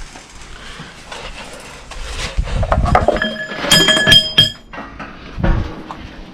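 Metal objects clinking and handled, with a few sharp clinks that ring on briefly about three to four and a half seconds in, and dull thuds before and after.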